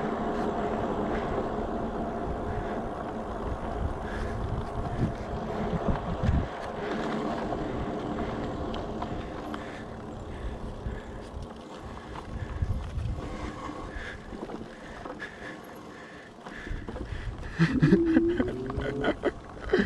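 Electric bike riding: a steady hub-motor whine under wind rumble on the microphone. It eases off and gets quieter from about halfway through. A short rising pitched sound comes near the end.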